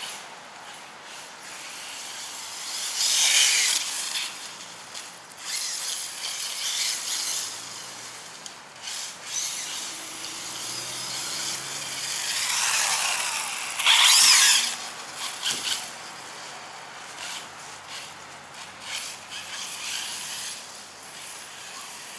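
An Arrma Senton RC truck's electric motor whining as it accelerates and runs at speed. It is loudest in two passes, about three seconds in and again around thirteen to fourteen seconds in, where the whine rises and falls. Shorter bursts of throttle come in between.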